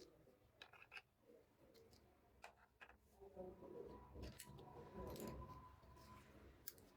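Quiet clicks and taps of small plastic toy pieces being handled. There is a faint low cooing-like sound in the middle.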